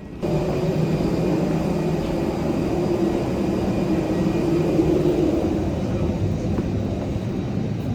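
Jet airliner on the ground before takeoff: a steady rush of air and engine noise with a low hum, starting abruptly a moment in.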